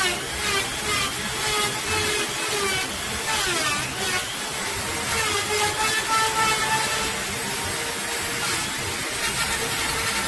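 Small electric rotary tool running continuously, its motor pitch wavering up and down.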